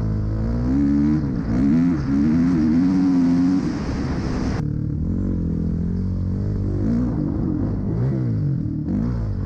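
Dirt bike engine running hard under a rider at speed, the revs rising and falling again and again as the throttle is worked and gears change, with wind noise. The sound changes abruptly about halfway through, at a cut between two runs.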